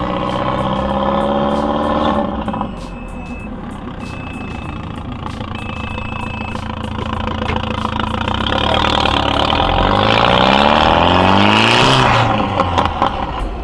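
Audi TT's turbocharged 1.8-litre four-cylinder (1.8T) engine accelerating. It revs up for about two seconds and eases off, then pulls hard again from about eight seconds in with a steadily rising pitch. About twelve seconds in it cuts off with a short burst of hiss and a few sharp pops.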